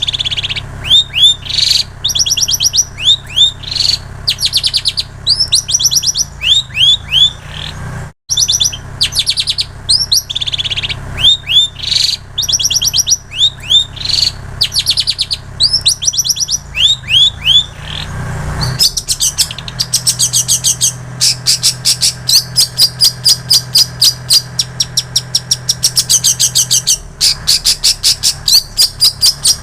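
Long-tailed shrike (cendet) singing a loud, fast song of chirping phrases, mimicking the songs of the plain prinia and the canary. There is a brief break about 8 seconds in. From about 19 seconds the song turns into an even, rapid run of repeated notes.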